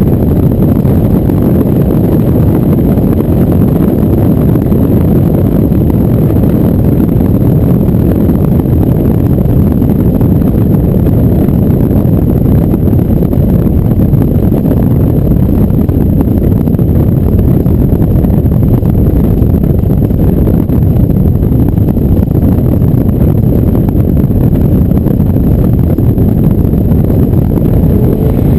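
Steady low wind rush and rumble buffeting a GoPro mounted on a truck, unbroken and without any rise or fall of a passing car.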